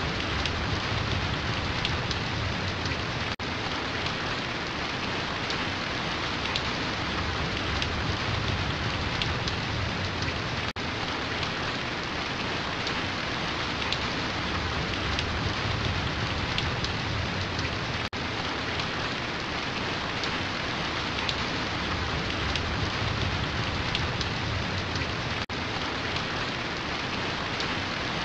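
Steady rain falling, a stock rain sound effect, with a brief dip in level about every seven seconds.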